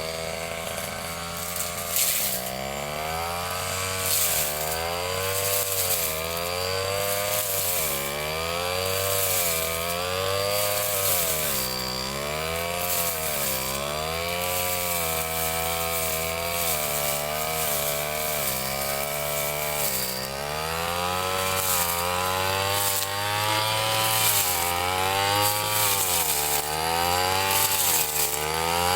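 Ryu 30.5 cc two-stroke brush cutter running as it cuts grass, its engine pitch swinging up and down about every two seconds.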